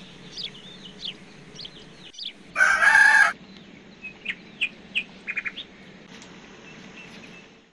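A rooster crows once, loud and brief, about two and a half seconds in. Small birds chirp repeatedly around it over a steady low hum.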